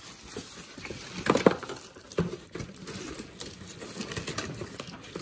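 Rustling and irregular clicks and knocks of cardboard and plastic packaging as a toy remote-control monster truck is pulled out of its box, busiest a little over a second in.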